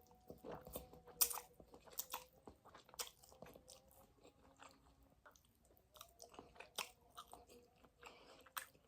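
Close-miked mouth sounds of someone eating spicy noodles: faint chewing with many small, irregular clicks and smacks.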